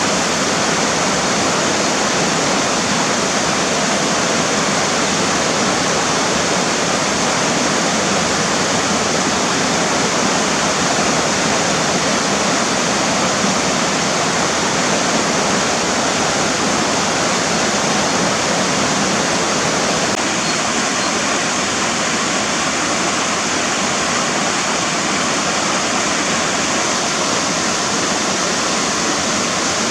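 River water rushing over rocks, a steady, full rushing sound with no pauses.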